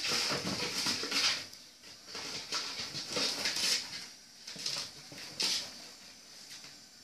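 A kitten scrambling and scratching around and inside a small box on a tiled floor: irregular scratchy bursts in three clusters, in the first second, around the middle and about two thirds through.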